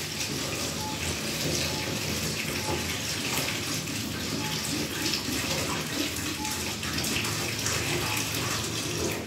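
Sparkling mineral water poured from a plastic bottle into a urinal, a steady splashing stream that stops near the end.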